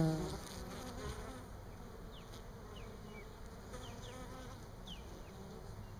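Honey bees buzzing around the hive, with one louder buzz right at the start that drops in pitch, then fainter buzzing. Faint short high chirps sound several times in the background.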